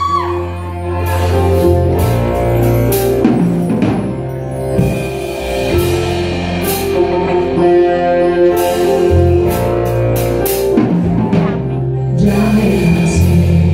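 Live band playing a song's instrumental introduction: drum kit, keyboards and guitar, with steady drum strokes under held chords. A singing voice comes in near the end.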